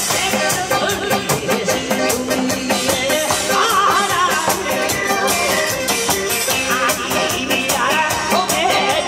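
Upbeat trot-style music with a fast, steady drum beat and the crowd clapping along in rhythm.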